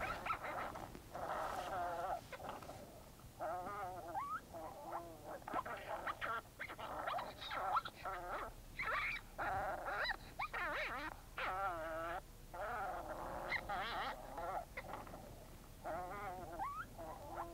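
Wavering, whining animal distress cries, repeated in short bursts with gaps between, played from a FoxPro electronic predator call to draw in coyotes.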